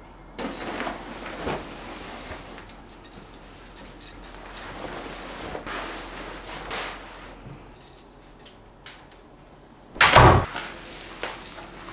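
Bedsheets and a duvet rustling and swishing as they are pulled and smoothed over a bed, followed by a single loud thud about ten seconds in.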